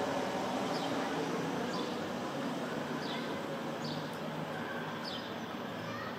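Steady traffic hum with a faint, short falling chirp about once a second from a house sparrow.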